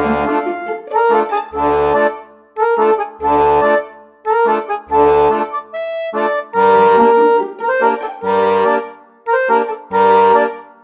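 Background instrumental music: a tune of sustained notes over short low bass notes that come about every second and a half.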